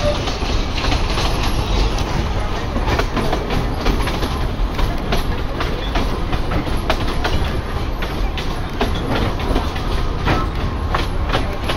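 Train running along the track, heard from aboard: a steady low rumble with irregular clicks and clacks of the wheels on the rails.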